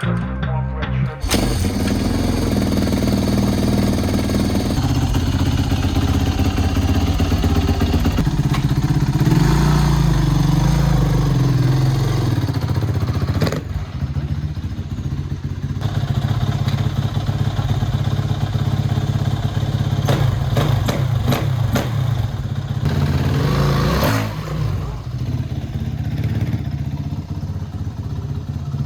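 2007 Kawasaki KX450F's single-cylinder four-stroke engine running on its first start after a rebuild. It mostly idles, with a rise in revs a third of the way in and several short, sharp throttle blips later on.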